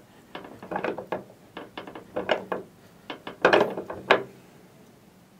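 Irregular metal clicks and rattles as a steel shear blade is handled on the bending block of a small bench press, with the loudest pair of knocks about three and a half and four seconds in.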